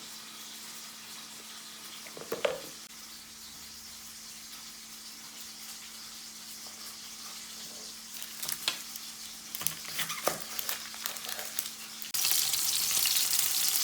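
Chicken pieces frying in hot sunflower oil: a steady sizzle with a few scattered pops and one knock. About twelve seconds in, the sizzle suddenly becomes much louder.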